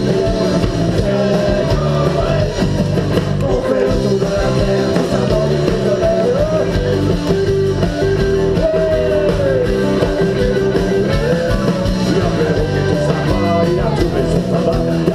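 Live rock band playing a song on stage, with electric guitar, and a melody line that holds and bends notes.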